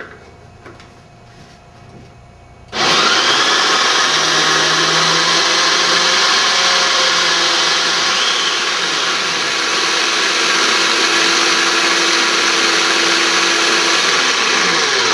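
Countertop food processor motor switching on about three seconds in and running steadily at full speed, chopping raw cranberries with coconut oil into a coarse relish.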